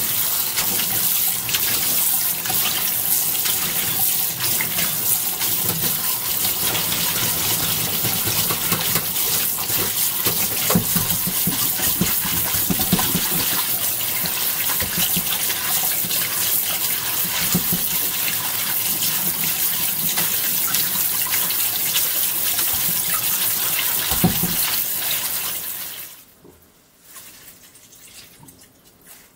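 Kitchen tap water running onto cooked noodles in a stainless-steel mesh strainer while a hand rubs and tosses them to rinse them. The steady rush of water stops near the end.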